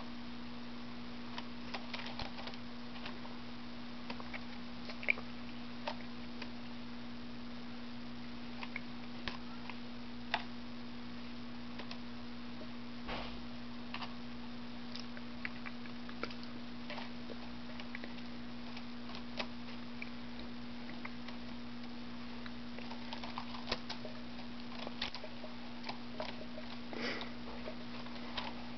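Irregular small taps and clicks of a pet house sparrow pecking at and tossing a cooked noodle, over a steady low electrical hum.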